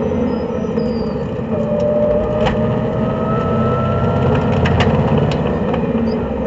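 Race car engine and road noise heard from inside the stripped-out cabin, as the car slows from speed into a corner and then accelerates out of it. A thin whine runs through the corner, and there are a few sharp clicks.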